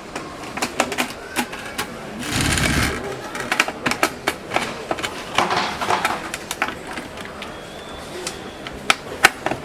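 Clicks and knocks of smart-lock hardware being handled and fitted into a door, with a short burst of rattling noise a little over two seconds in.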